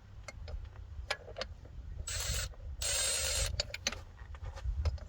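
A ratchet wrench turning the power steering pump bracket bolts: two spells of rapid ratcheting, about two and three seconds in, amid scattered clicks and clinks of the socket and tools.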